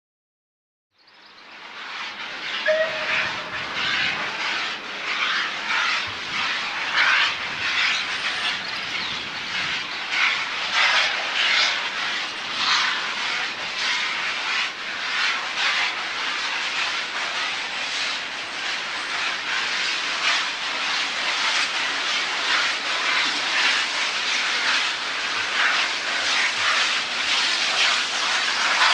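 Steam locomotive working hard as it approaches, its exhaust beats chuffing out in a rough repeated rhythm and growing gradually louder.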